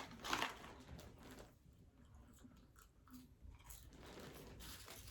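A person chewing and biting into McDonald's food, with a few louder bites and chews in the first second and a half and quieter chewing after.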